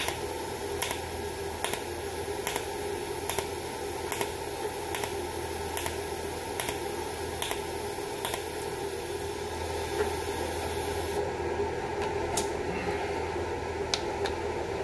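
Andeli inverter TIG welder in its pulsed cold spot-welding mode, fusing stainless steel exhaust tubing without filler rod: a short sharp crack with each arc pulse, a little more than once a second, over a steady hum. The pulses stop about eleven seconds in, leaving a few scattered clicks.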